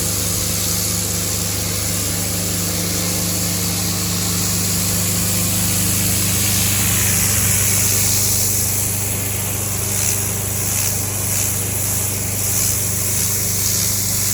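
A machine running steadily, a loud low hum under a hiss. From about ten seconds in, short hissing pulses repeat every half second or so over it.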